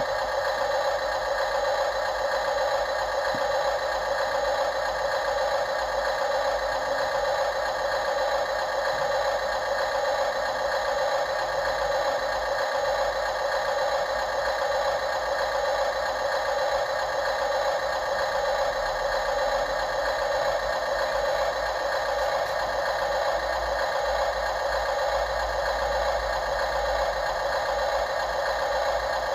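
Small electric motors and gearboxes of radio-controlled construction machines whining steadily.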